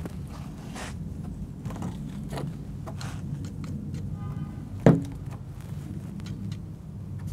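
PVC pipe laterals being handled and fitted into a PVC manifold: light plastic clicks and scrapes, with one sharp knock about five seconds in, over a steady low background hum.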